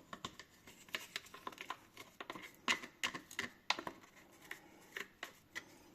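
Faint, irregular small clicks and light scrapes from handling the parts of a partly disassembled coffee grinder.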